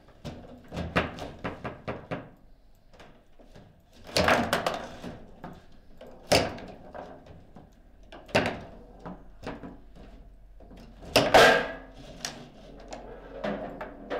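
Foosball table in play: irregular hard knocks and clacks of plastic players striking the ball and rods banging against the table, the loudest strike about eleven seconds in.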